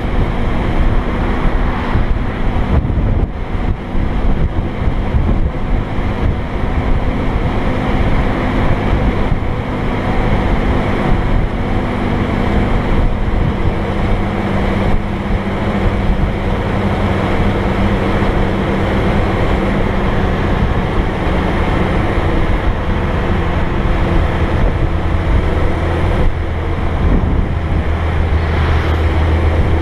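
Wind buffeting a camera mounted outside on a moving truck cab, over the steady drone of the truck's diesel engine at road speed. The engine note shifts about halfway through, and a deeper hum builds near the end.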